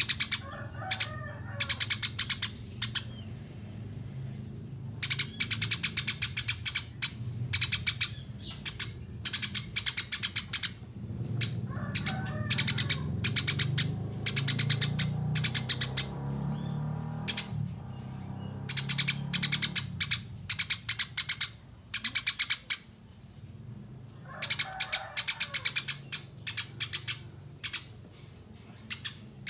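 Eurasian tree sparrows chirping in fast, high runs of repeated chirps: the excited chatter of sparrows squabbling. The chirps come in clusters of a second or more with short pauses between them, over a faint low hum.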